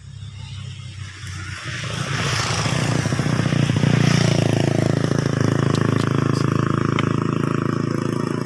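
A motor vehicle engine running nearby, growing louder over the first few seconds and then holding steady.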